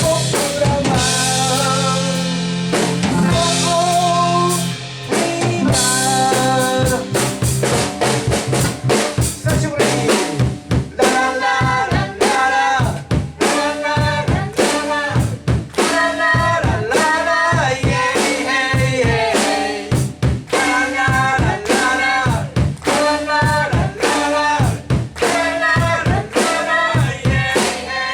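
Live rock band playing an instrumental passage on electric guitar, keyboard and drum kit. A held chord rings for the first five seconds or so, then the drums come in with busy, steady strikes under a bending melodic lead line.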